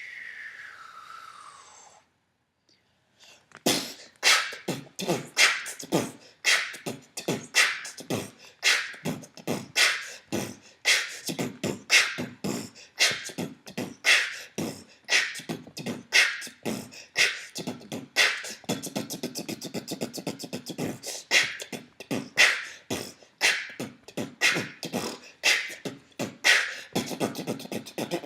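Beatboxing: rhythmic mouth-made percussion, sharp clicks and clucks at two to three a second. It begins after a falling glide and a short pause about three seconds in.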